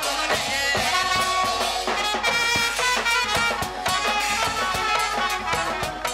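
Live jatra band music accompanying the dance: a wind-instrument melody over steady drum strokes.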